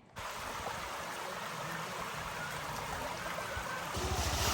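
Mountain stream running: a steady rush of water that starts abruptly, with a low rumble joining near the end.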